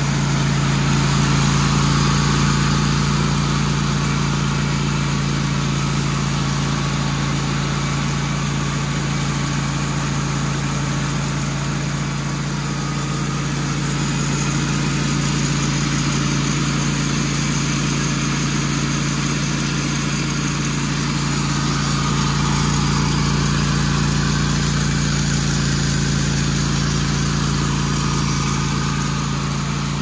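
Wood-Mizer portable band sawmill sawing a cypress log: the mill's engine runs steadily under load as the band blade travels through the wood.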